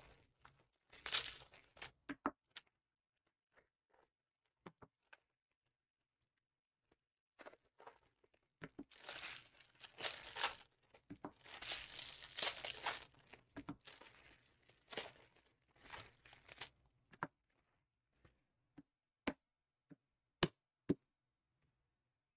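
Plastic trading-card packaging being torn open and crinkled, in bursts with a pause between, followed by a few light clicks near the end.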